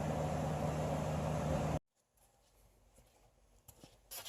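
Steady low mechanical hum of a running engine or machine, with a constant drone, that cuts off abruptly a little under two seconds in; after it, near quiet with a few faint clicks.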